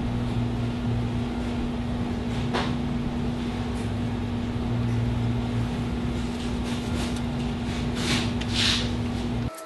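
Golf cart differential inspection plate being handled and pressed onto the housing: brief rubbing and scraping sounds, once about two and a half seconds in and twice just after eight seconds in, over a steady hum with one fixed low tone that cuts off abruptly near the end.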